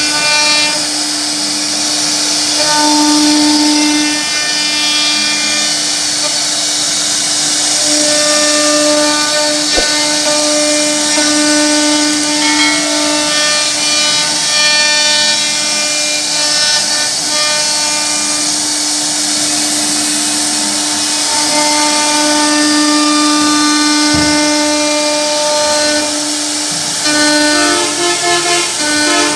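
CNC wood router's spindle running with a steady whine while its bit carves wood, over a bright hiss of cutting. Near the end the whine briefly wavers and steps in pitch.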